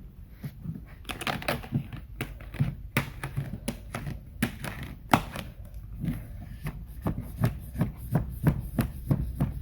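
Squeegee being worked hard over vinyl graphic film on a Tolex-covered case: a string of irregular short clicks, taps and scrapes as the film is pressed down.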